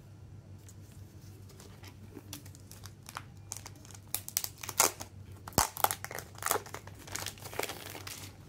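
Clear plastic wrapping crinkling as it is peeled open and slid off a boxed CD and Blu-ray set. A few light crackles at first, then dense, louder crinkling from about halfway through, with one sharp snap in the middle.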